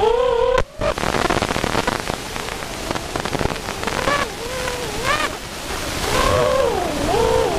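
Racing quadcopter's Novak Breeze 2206 2400kv brushless motors and propellers whining, heard from the camera mounted on the quad. The pitch rises and falls with throttle. After a brief dropout under a second in, a rushing wind-like noise covers the whine for a few seconds, and then the gliding whine returns.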